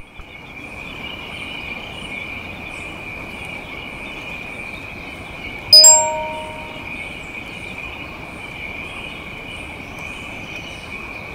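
Steady, high-pitched chorus of insects buzzing. About halfway through, a single metal bell or chime is struck loudly and rings out for about a second.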